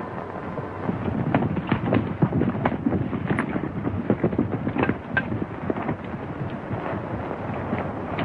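Hoofbeats of a group of horses galloping, a dense, irregular clatter of strikes.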